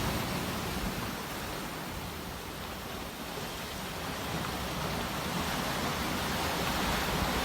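Sea waves washing on a shore: a steady rush of surf that ebbs about two seconds in and swells again toward the end.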